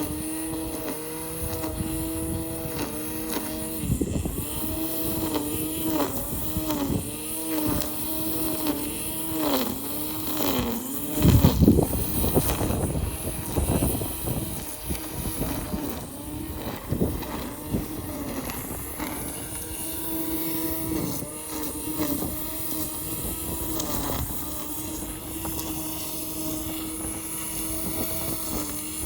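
Lawn mower engine running. For the first ten seconds its pitch sags and recovers again and again, as it bogs under load in tall grass. A louder low rumble comes about eleven seconds in, and after that it runs at a steadier pitch.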